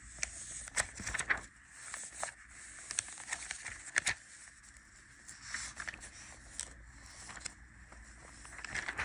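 Soft rustling with scattered sharp clicks and taps, the sharpest about four seconds in, over a low hiss.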